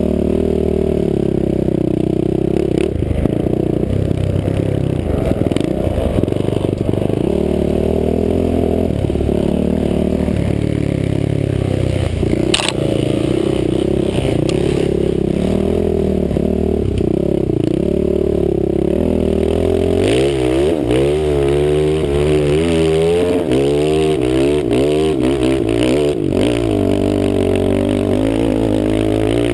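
Dirt bike engine running under way, its pitch rising and falling with the throttle, heard from a helmet-mounted camera. In the second half the revs swing up and down quickly over several seconds, and a sharp click comes near the middle.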